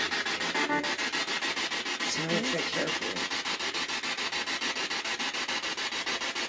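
Ghost-hunting spirit box sweeping through radio stations: static chopped into fast, even pulses, with a brief voice-like snatch of radio around two seconds in.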